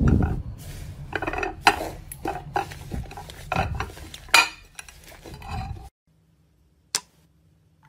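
Thick slime being squished, poked and pulled apart by hand, making irregular sticky pops, crackles and squelches. It stops about six seconds in, and a single click follows about a second later.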